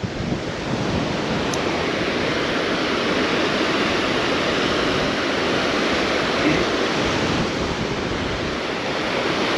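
Steady rushing of surf breaking on the beach, mixed with wind buffeting the microphone.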